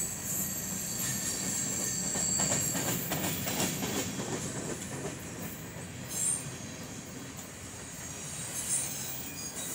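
Freight cars (covered hoppers and autoracks) rolling past on steel wheels, with a steady rumble and high, thin wheel squeal strongest in the first few seconds. A run of clacks comes from the wheels crossing rail joints about three to four seconds in, and there are short squeaks later on.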